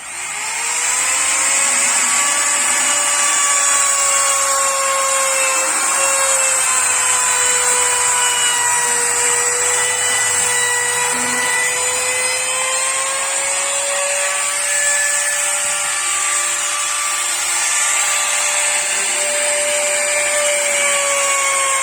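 Electric trim router spinning up and running at high speed, a steady high whine over a hiss whose pitch dips and rises slightly.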